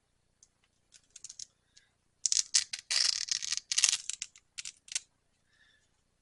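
Handling noise of leather belt pieces and Velcro being picked up and moved on a workbench: a few light clicks, then a couple of seconds of short, scratchy, rustling bursts.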